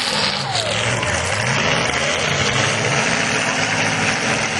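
Several demolition derby cars' engines running under a dense, steady hiss.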